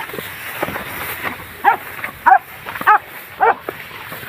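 Hunting dog giving tongue: a run of short, high yelping barks, the loudest four coming in quick succession about every half second from midway on, a sign the dog has picked up the scent of game.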